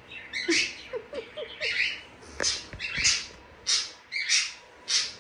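Sulphur-crested cockatoo squawking: a string of about eight short, harsh squawks, roughly one every half-second, with a few short low rising notes near the start.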